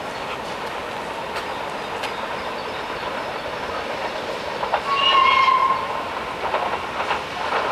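An approaching train running along the line, giving one short high whistle blast about five seconds in, followed by a few sharp clicks of wheels over rail joints near the end.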